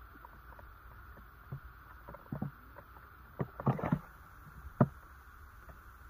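A hen pecking and scratching about inside a tyre trap: a few irregular dull taps and knocks over a steady faint hiss. The loudest are a quick cluster a little after the middle and one sharp tap near the end.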